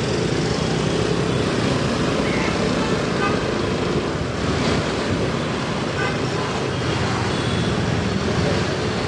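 Steady engine and road noise of a motorbike being ridden through town traffic, heard from the rider's seat.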